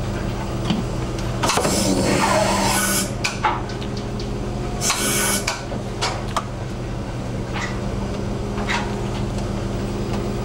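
A fishing vessel's engine drones steadily underneath. Two loud rushes of noise come about one and a half and five seconds in. A few short, sharp knocks follow each rush.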